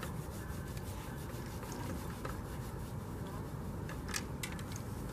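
Steady low outdoor rumble, with a few faint clicks and rubs about two and four seconds in.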